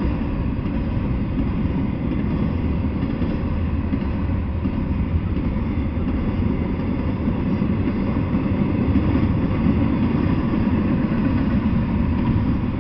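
Double-stack container freight train rolling past, a steady low rumble of wheels on the rails.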